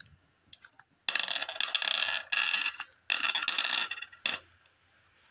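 Glass mancala gems clattering against each other and the wooden board: several bursts of dense rattling over about three seconds, then one sharp click.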